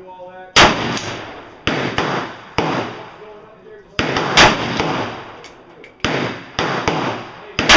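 A VZ-58 semi-automatic rifle in 7.62x39 fired shot by shot, about eight single shots spaced irregularly, roughly half a second to a second and a half apart. Each shot is followed by a short decaying echo.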